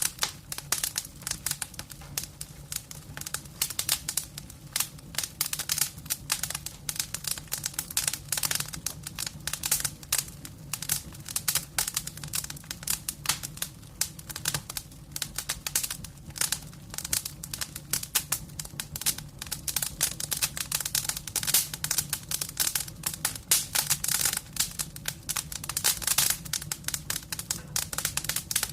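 Wood fire crackling in a fireplace: a dense, unbroken stream of sharp pops and snaps over a low steady hum.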